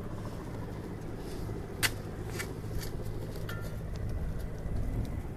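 Ground fire in forest leaf litter crackling: a few scattered sharp snaps, the loudest about two seconds in, over a steady low rumble.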